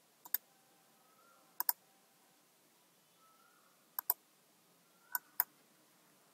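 Computer mouse button clicks: four pairs of short, sharp clicks a second or two apart, each pair a quick press-and-release or double-click.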